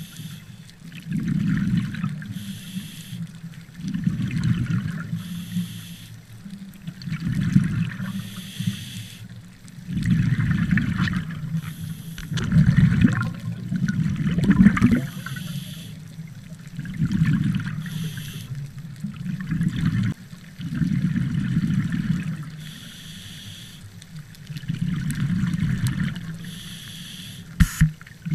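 Scuba diver breathing through a regulator, heard underwater: bursts of exhaled bubbles gurgling about every three seconds, with the quieter hiss of each inhalation between them.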